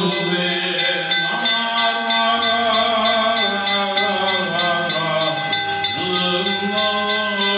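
Male voices chanting a Syriac liturgical hymn over a steady sustained drone. The metal liturgical fans (marwahtho) fitted with small bells are shaken, giving a continuous rhythmic jingling.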